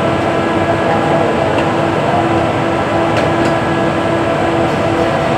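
Steady mechanical drone with a constant low hum, with a couple of faint clicks about three seconds in.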